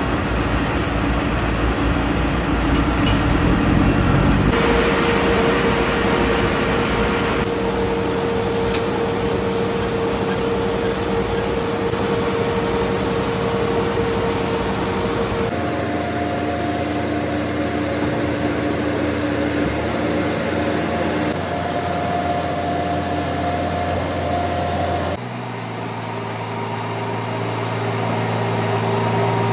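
Heavy farm machinery running with a steady hum: a mobile silage baler and the tractor powering it. The pitch and character switch abruptly a few times between different running sounds.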